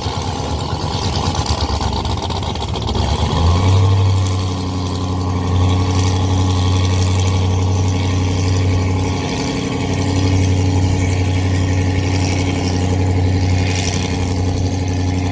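Fountain offshore race boat's engines running steadily; about three and a half seconds in the engine note steps up slightly and gets louder, then holds.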